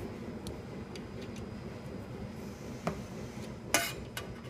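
Metal tools and parts clinking against the stainless-steel mold of a blister packing machine during assembly or disassembly: a few light clicks, then one louder, short metallic clatter about three-quarters of the way through, over a steady low hum.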